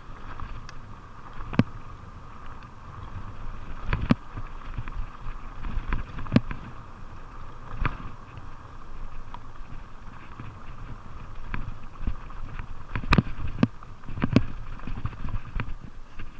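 Fuji Beartooth 27.5+ mountain bike running fast downhill on a rough dirt trail: a steady rumble and whir of tyres and rushing air, broken by irregular sharp clunks and rattles as the bike hits bumps and rocks.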